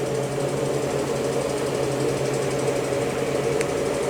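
Steady low mechanical hum, like a small motor or fan running, with one faint click about three and a half seconds in.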